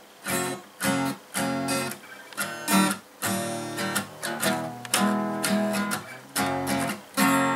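Acoustic guitar strummed as a song's intro: chords struck in short rhythmic strokes with brief choked gaps between them, starting about a third of a second in.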